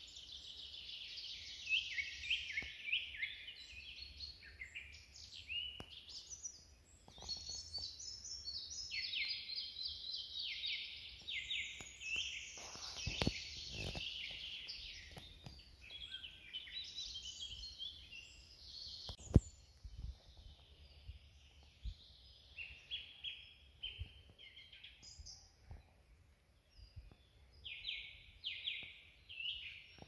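Several songbirds singing over one another in a dense chorus of quick chirps and trills, thinning out near the end. A couple of low bumps come just before the middle, and a single sharp click about two-thirds of the way through.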